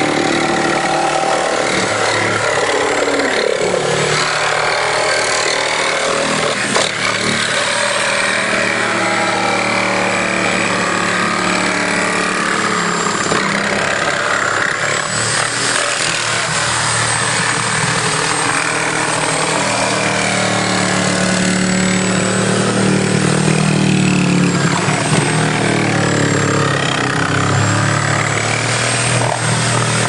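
Power tool running continuously as it cuts through a refrigerator's sheet-metal cabinet, its pitch wavering under load, with a brief knock about seven seconds in.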